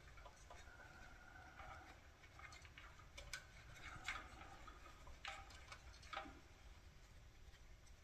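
Near silence, with a few faint, scattered clicks and rustles of hands handling small-engine wiring and connectors.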